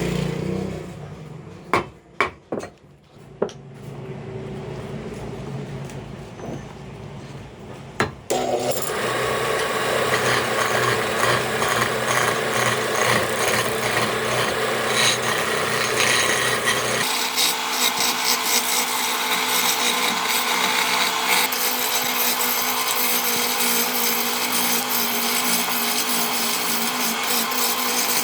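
Wood lathe turning a wooden table leg blank, with a few sharp knocks in the first seconds. From about eight seconds in, a turning tool cuts into the spinning wood with a loud, steady scraping noise.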